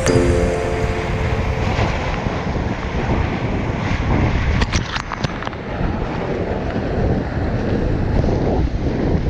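Steady rush of the Ganga's whitewater with wind buffeting the microphone, and a few sharp clicks near the middle.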